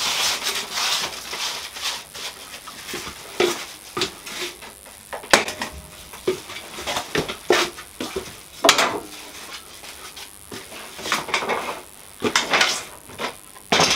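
Cloth rag rubbing along a wooden strip, wiping off excess wood glue, in uneven strokes, with a few sharp clicks and knocks.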